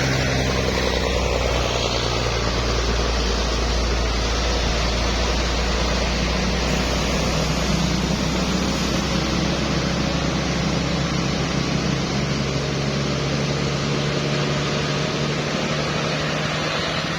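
Road traffic climbing a hill: vehicle engines running under load with a steady low rumble and road noise. The engine note shifts about eight seconds in and again near the end.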